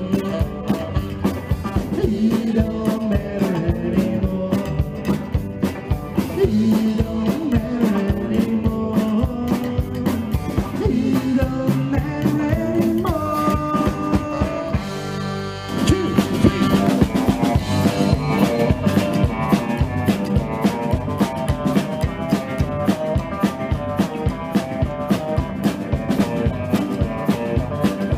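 Live rock 'n' roll band playing an instrumental passage with no vocals: electric guitars, upright bass, saxophone and drum kit over a steady beat. About halfway through a high note is held, the band briefly drops back, then comes in again louder.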